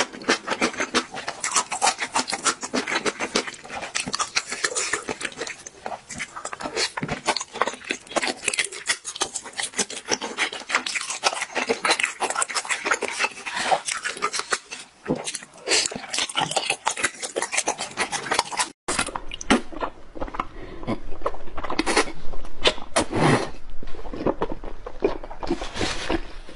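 Close-miked wet chewing and mouth sounds of someone eating soft, saucy rice cakes and fish cakes, a dense run of small smacks and clicks. About three-quarters of the way through it cuts to another eater's chewing, sparser, over a low steady hum.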